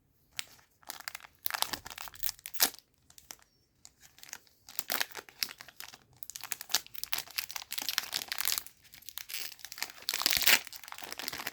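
Foil wrapper of a One Piece Card Game booster pack crinkling and tearing as it is handled and opened, in irregular bursts of rustling, with a louder tear about ten seconds in.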